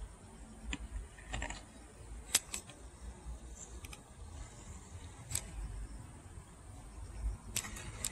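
Faint low rumble with several short sharp clicks scattered through it, the loudest about two and a half seconds in; no motor sound stands out.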